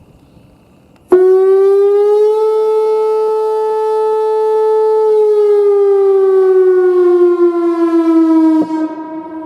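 Whelen Vortex R4 outdoor warning siren sounding a steady alert tone in a test, with one of its amplifier drivers blown. The tone comes on abruptly about a second in and holds level. It sags lower in pitch over the last few seconds, then drops off sharply near the end and trails away.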